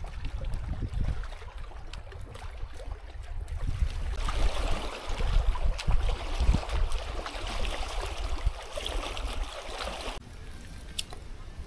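Gusty wind buffeting the microphone with an uneven low rumble, and a loud rushing hiss through the middle that cuts off suddenly near the end.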